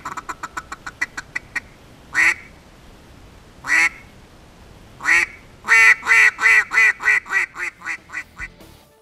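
Acrylic double-reed duck call (Fearless Calls Marsh Boss) blown to quack like a duck: a quick run of short soft notes first, then three single drawn-out quacks about a second and a half apart, then a loud series of about a dozen quacks that get quieter and come faster as it tails off near the end.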